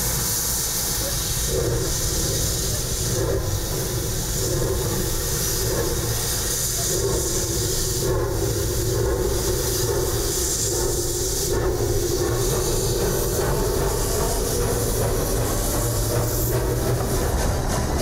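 Mocănița narrow-gauge steam locomotive letting off a steady hiss of steam, with a steady drone and low rumble underneath.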